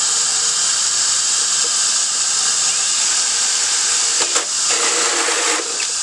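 Cordless drill with a hole saw running briefly about four seconds in, cutting a hole through the top of a foam-filled fiberglass stringer, over a steady background hiss.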